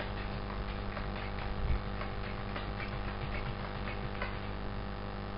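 Scattered light clicks of a computer mouse and keyboard over a steady electrical hum.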